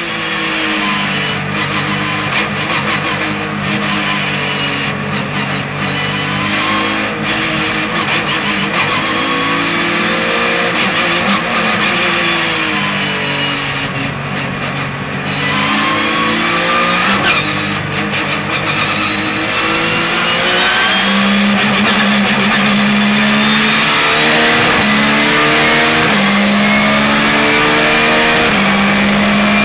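Porsche 911 GT3 R race car's naturally aspirated flat-six engine, heard from inside the cockpit. Its pitch rises and falls repeatedly for the first two-thirds, then it gets louder and holds high revs from about two-thirds in, broken by short dips at gear changes.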